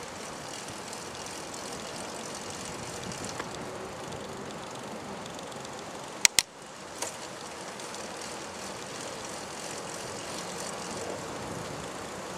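Steady rushing noise of wind and rolling wheels from a slow ride, with two sharp clicks close together about six seconds in.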